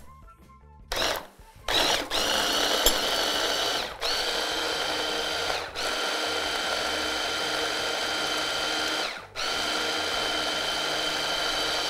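Electric hand blender motor driving a chopper-bowl attachment, blending a moist vegetable and avocado mixture. It runs in pulses: a short burst about a second in, then four runs of two to three seconds with a steady whine, split by brief stops, ending shortly before the end.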